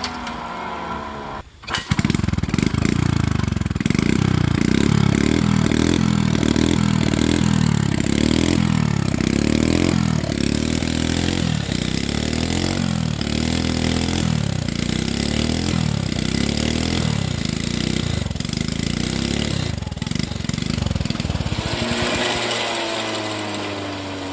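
A small engine picks up about two seconds in and runs hard and loud, as if under load, easing off near the end.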